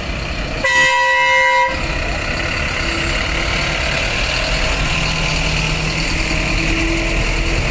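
City bus horn sounds once, a steady single-note blast of about a second, over the steady running of a bus engine as the bus pulls past.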